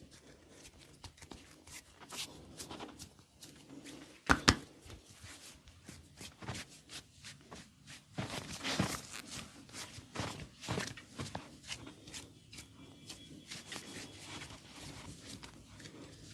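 Thai massage handling sounds: rustling and scattered sharp clicks and cracks. The loudest is a double crack about four seconds in, and the activity gets busier from about eight to eleven seconds.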